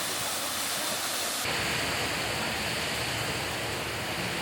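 Steady rushing of a waterfall. About a second and a half in, the sound changes abruptly to a fuller, deeper rush.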